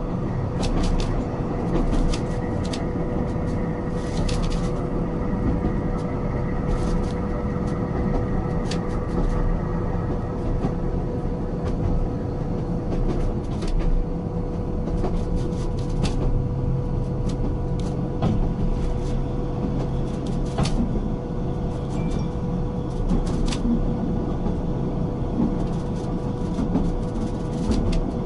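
Narrow-gauge railway carriage in motion: a steady rumble of wheels on the rails, with a steady hum and frequent sharp clicks and rattles.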